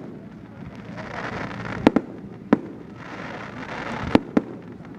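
Fireworks going off: a string of sharp bangs, two in quick succession about two seconds in, another half a second later and two more about four seconds in, over a continuous crackling hiss.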